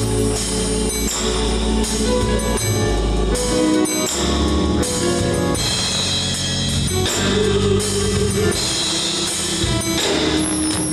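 Live gospel music from a band with drums and cymbals, held chords over a bass line, picked up by a home camcorder.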